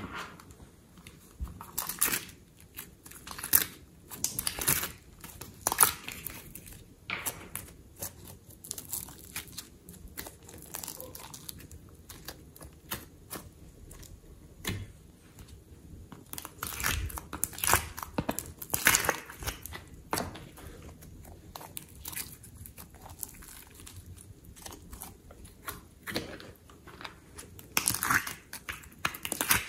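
Slime and soft clay handled by hand: irregular sticky crackles, snaps and squelches as it is pressed, dropped into the tray and peeled out of its containers, louder in a few clusters.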